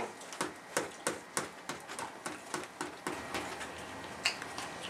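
A quick run of light, irregular clicks and knocks, about three a second, thinning out after about three seconds, with one more near the end.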